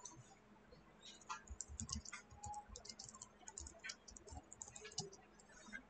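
Faint computer keyboard typing: quick, irregular keystrokes.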